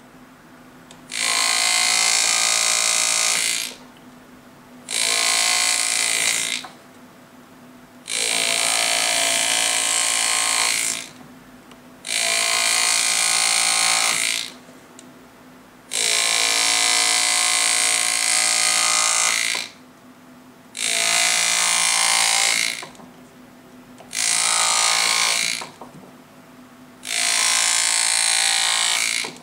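Pneumatic engraving graver buzzing as it cuts into a gold signet ring, running in eight bursts of two to four seconds with short pauses between them.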